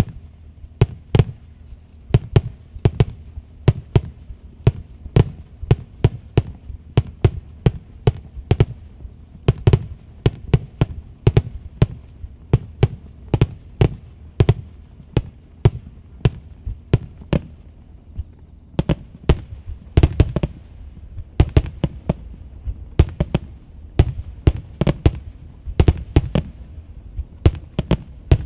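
Aerial firework shells bursting in quick succession, about two booms a second, heard from roughly 800 m away. A steady thin high tone runs underneath.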